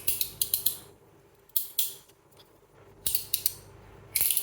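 Stainless steel slider fidget (an Ammo Wormhole clone) being slid back and forth, its metal parts clicking sharply in four short runs of clicks with pauses between.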